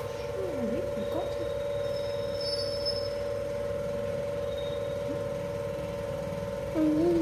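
A steady droning hum throughout, with a brief louder pitched sound near the end.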